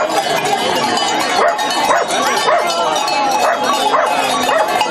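A herd of goats bleating, many overlapping wavering calls, with small bells clinking among them.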